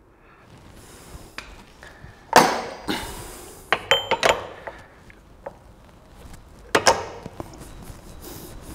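Steel anvil wheels of an English wheel clanking and clinking as the lower wheel is swapped out. There is a heavy knock about two and a half seconds in, a cluster of ringing metal clinks around four seconds, and another knock near seven seconds.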